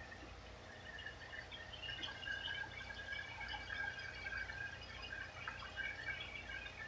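Shiitake soy ginger sauce pouring and dribbling from a nearly empty glass bottle onto sliced onions and mushrooms in a pan. The irregular pouring grows louder about two seconds in.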